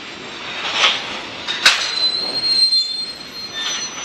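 Freight train of covered hopper cars rolling past, its steel wheels squealing on the rails in a steady high-pitched tone through the middle, with two sharp metallic clanks about one and nearly two seconds in.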